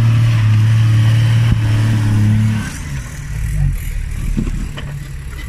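Off-road 4x4's engine held at steady high revs as it climbs over rocks, then easing off about two and a half seconds in to a lower, rougher running sound. A single sharp knock comes about a second and a half in.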